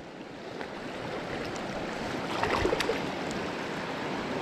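Steady rush of river water, with a few faint splashes or knocks about two and a half seconds in.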